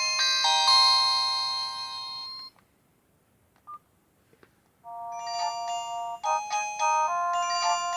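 Nokia 108 mobile phone ringtones: one chiming melody ends about two and a half seconds in, and after a couple of seconds of near silence the next ringtone begins, a quick melody of short, high notes.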